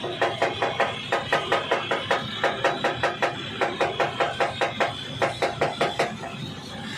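Rapid, even series of light taps on metal, about five a second, which stop about six seconds in.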